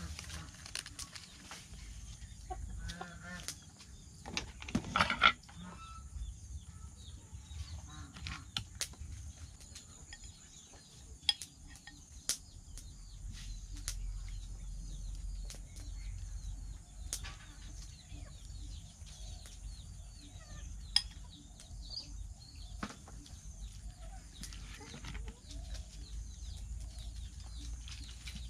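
Chickens clucking in the background, with a louder burst about five seconds in. Sharp clicks of a metal spoon against plastic jars and a plastic bowl come now and then as seasonings are spooned out.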